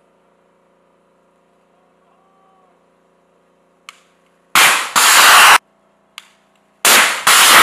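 Two shoulder-fired Javelin anti-tank missile launches. Each is a loud blast followed within half a second by a second, longer burst of rushing noise, and each is preceded by a faint click. The second launch trails off slowly near the end.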